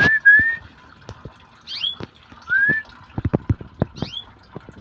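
Canaries calling: short falling chirps repeating about every two seconds, with rising whistled notes at the start and about halfway through. A quick run of sharp clicks follows in the second half.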